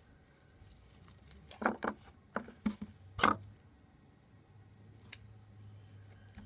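Slime being pulled apart by hand and dropped into a plastic tub: a handful of short squelches and taps between about one and three and a half seconds in, the loudest a little after three seconds.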